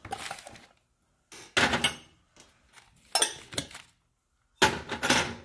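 Small metal toy pots, pans and lids from an antique tin toy stove set clattering and clinking against each other and the table as they are handled and set down, in four short bursts.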